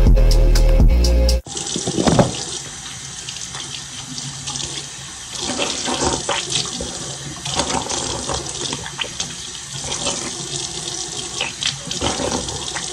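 Background music for about the first second and a half, cutting off abruptly. Then a bathroom sink tap runs steadily into the basin, with irregular splashes as someone washes at the sink.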